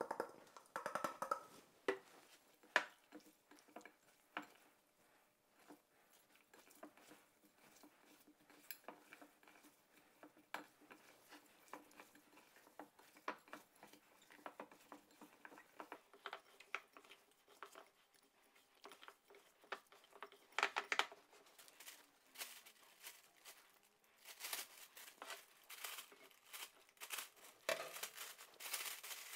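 Hands rubbing a ground spice mix into raw beef pieces in a glass bowl: soft scattered taps and clicks of meat and fingers against the glass, after the mix is poured in at the start. Near the end a plastic food bag crinkles as the meat is packed into it.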